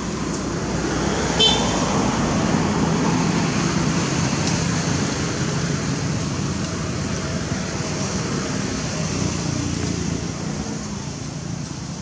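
Steady engine-like road traffic noise that swells and then slowly fades, with a short high chirp about one and a half seconds in.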